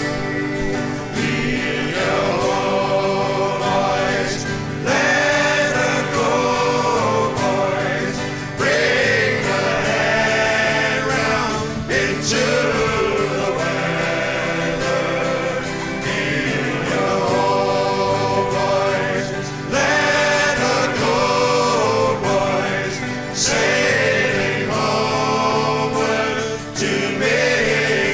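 Background music with singing voices over a steady accompaniment.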